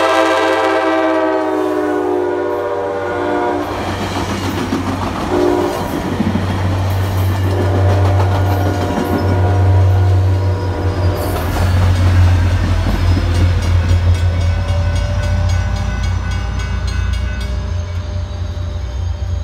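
ACE commuter train passing at speed, its horn sounding loudly for about three seconds at the start, then again more faintly. The train rumbles and clatters past as the F40 diesel locomotive pushing at the rear drones by. A grade-crossing bell rings near the end.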